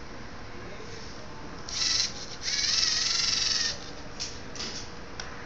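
LEGO Mindstorms NXT robot arm's servo motors whining as the arm swings the gripped ball across. There is a short whine just before two seconds in, then a longer wavering one of a little over a second.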